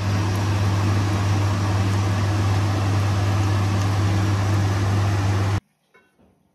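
Steady, loud hum of an electric fan motor with an even rushing noise, cutting off suddenly about a second before the end.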